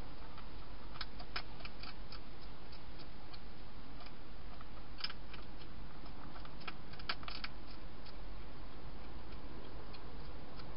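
European hedgehog crunching dry food inside a plastic feeding station: irregular sharp clicks, bunched about a second in, around five seconds and around seven seconds, over a steady hiss.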